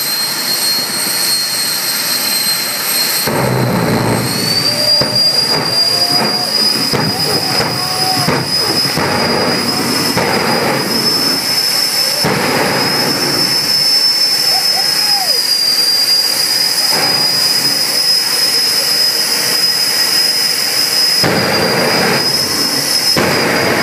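Jet car's turbine engine running: a steady high-pitched whine over a broad rush of exhaust. About four seconds in, the whine rises a little and the rumble grows louder.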